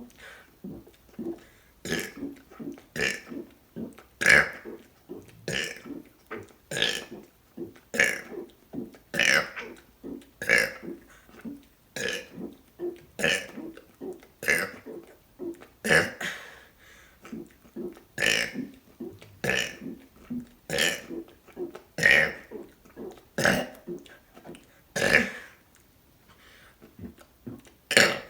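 A person burping over and over, short separate burps coming roughly once a second in a steady run of about twenty, as part of a deliberate string of a hundred.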